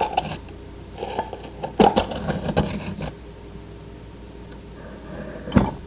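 Kitchen utensils and containers being handled, clinking and knocking several times, then one sharper knock near the end.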